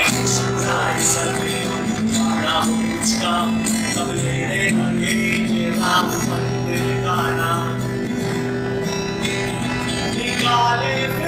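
Acoustic guitar strummed in steady chords that change every couple of seconds, with a man's voice singing along in short phrases.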